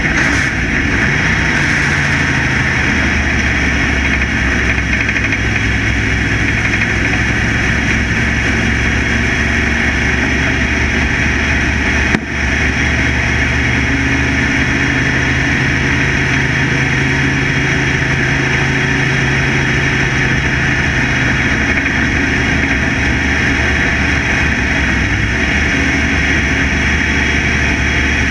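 Factory Stock dirt-track race car's engine running loudly at a fairly steady pitch, heard from inside the car with a steady rush of noise over it. A single sharp knock sounds about twelve seconds in.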